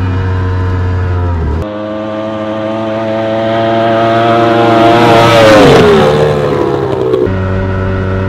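Racing outboard engine of an F1 tunnel-hull race boat running at speed with a steady note. Less than two seconds in the sound changes abruptly; the pitch and loudness then climb, the pitch falls away sharply, and a little after seven seconds it switches back to the steady note.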